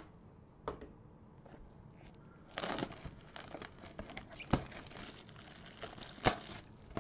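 Plastic shrink wrap crinkling and tearing as it is pulled off a Panini Prestige Mega Box of trading cards. The crackling starts about two and a half seconds in and goes on, with a few sharp snaps.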